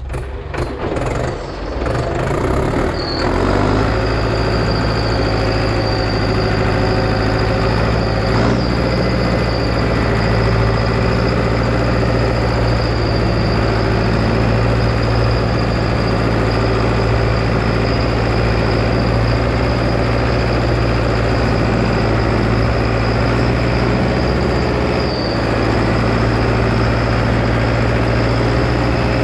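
International Harvester 844 tractor engine pulling hard under load, hauling a loaded 10-tonne trailer uphill. The note is uneven for the first few seconds, then settles into a steady heavy run. A brief high squeal comes about three seconds in and again near the end.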